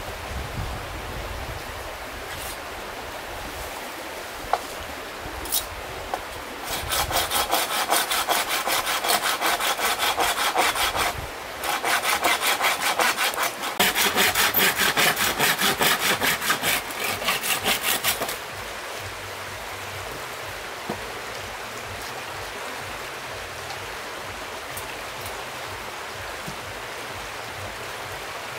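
Folding hand saw cutting through a green bamboo pole in quick back-and-forth strokes, in two runs with a brief pause between. A stream runs steadily underneath.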